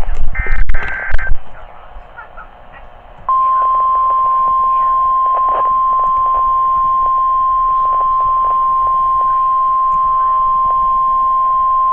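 NOAA Weather Radio Emergency Alert System broadcast heard through the receiver's speaker. A short warbling two-tone SAME digital header burst comes about half a second in. After a short gap, the steady 1050 Hz warning alarm tone sounds loudly for about nine seconds, the alert that heralds a flash flood warning.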